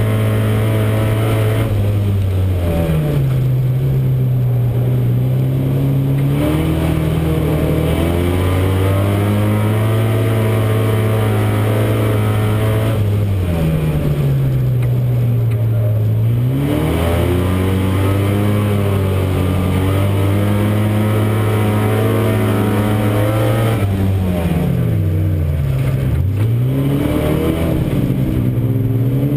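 Euro Rod race car's engine heard from inside the car, running at high revs, then dropping in pitch and climbing again three times as the driver lifts off for the bends and accelerates out.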